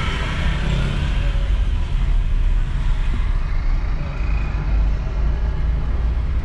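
Steady low engine and road rumble of a car driving slowly, heard from inside the cabin.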